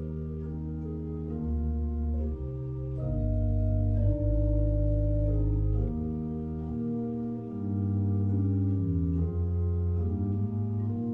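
Church organ playing slow, sustained chords over deep held bass notes, the harmony changing every one to two seconds.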